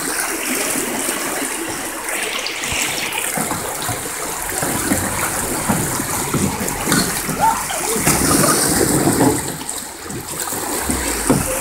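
River water rushing and churning through a small chute of white water, with splashing around a passing kayak.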